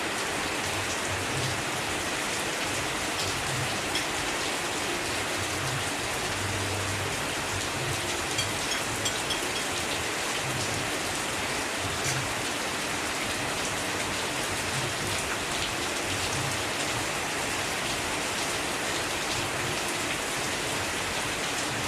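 Heavy rain falling steadily, a constant hiss with scattered drop ticks.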